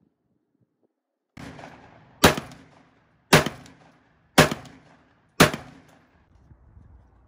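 ATI Bulldog 12-gauge bullpup shotgun firing four shots, about one a second, each a sharp blast with a short ringing tail; the semi-automatic action cycles between shots.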